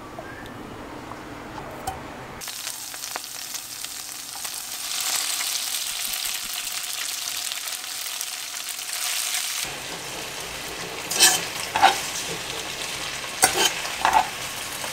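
Cooked pasta frying in olive oil with garlic in a frying pan, sizzling steadily from about two seconds in. From about eleven seconds in, a utensil stirring it knocks against the pan several times.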